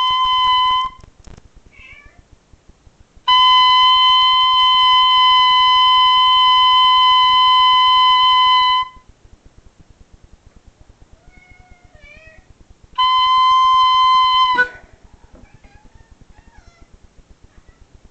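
An oboe holding the same high note three times: one note cuts off just under a second in, a long one lasts about five and a half seconds, and a shorter one comes near the end. In the pauses between notes a cat meows with short, wavering cries.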